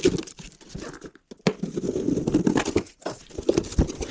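Cardboard and packaging being torn open and crinkled as a box is unpacked by hand: a dense run of irregular crackles and rips, busiest from about a second and a half in.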